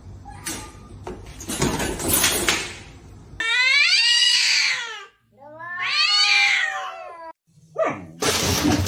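A cat yowling: two long, drawn-out calls, each rising and then falling in pitch. A burst of noise comes before them and another near the end.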